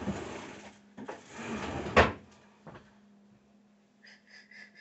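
Rummaging through a kitchen cupboard, then a door shut with a sharp knock about two seconds in. A few faint short high chirps follow near the end.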